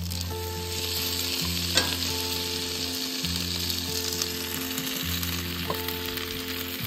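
Fish sizzling as it fries in a hot pan, with a steady hiss throughout and a sharp click about two seconds in. Slow background music of sustained chords that change about every two seconds plays over it.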